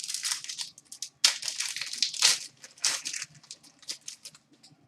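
Hockey card pack wrappers crinkling and tearing, with cards being handled: a quick run of rustles for about three seconds, thinning to a few light ticks.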